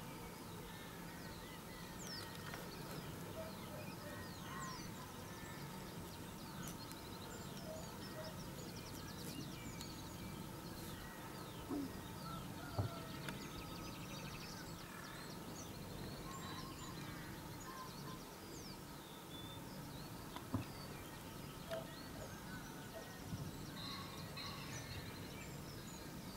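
Many small birds chirping and singing at a distance over a steady low hum, with two brief clicks about halfway through and again later.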